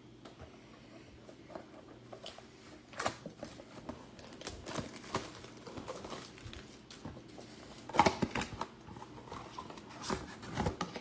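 Trading-card mega box being opened by hand: scattered crinkling, tearing and tapping of cardboard and wrapper, with a louder knock about eight seconds in.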